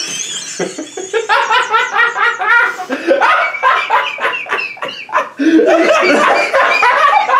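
A man and a woman laughing hard together, in quick repeated bursts of laughter that ease briefly a little past the middle and then swell again.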